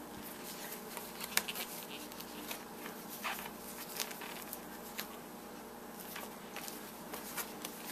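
Scattered light clicks and rustling as a new pair of leather gloves and their tags are handled, over a faint steady hum.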